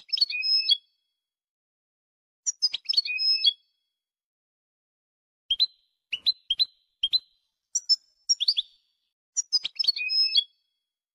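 Spliced recording of European goldfinch song, a copia used to train cage birds: the same short twittering phrase comes back several times, with a run of four short chirps in the middle. Dead-silent gaps fall between the phrases.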